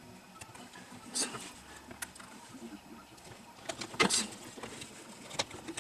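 Scattered clicks and light knocks of chainsaw parts and tools being handled during reassembly, the sharpest knock about four seconds in.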